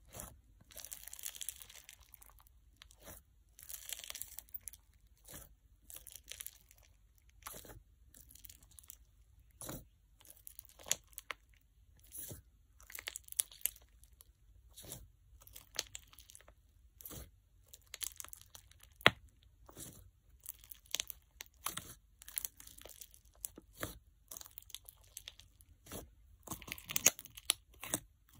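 Fingers poking and pressing into a crunch slime packed with bingsu beads and microbeads in a jar, giving repeated crackling, popping crunches about once a second. A sharp, louder pop comes about two-thirds of the way in.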